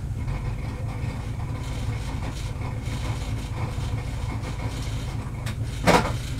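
Highly tuned 2.0-litre naturally aspirated racing engine of a BMW 320i STW E36 idling with a lumpy, low rumble, heard from inside the cockpit. Near the end a brief loud noise comes as the car is put into first gear.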